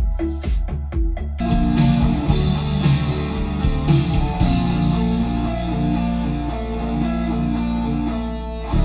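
Music played back through a portable smart speaker: a sparse drum beat gives way about one and a half seconds in to heavy, guitar-driven rock music.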